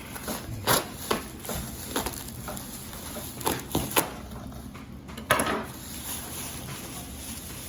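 A cardboard shipping box being cut open: scattered clicks, taps and short scrapes of cutting through packing tape and cardboard, with a longer tearing scrape about five seconds in.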